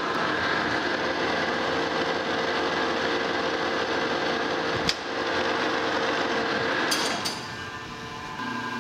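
Monarch Model K metal lathe running with a steady hum while a threading tool takes a light scratch pass at a 16 threads-per-inch setting. A sharp click about five seconds in, then a short clatter about seven seconds in as the lathe is stopped and the running sound drops away.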